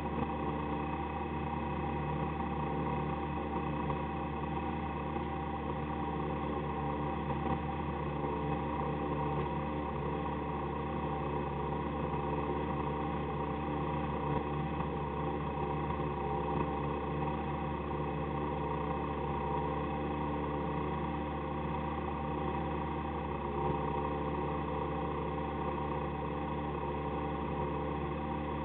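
Citroën AX autocross car's engine idling steadily with the car at a standstill, heard from inside the cabin.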